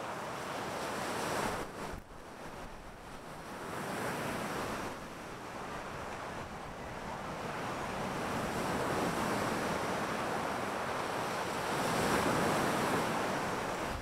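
Ocean surf breaking and washing up a sand beach, swelling and ebbing with each wave, the loudest surge near the end.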